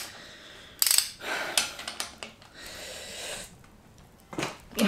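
Ratchet wrench clicking as it works the camshaft bearing-cap bolts on a Ford Zetec cylinder head: a few sharp clicks, then a stretch of rapid ratcheting.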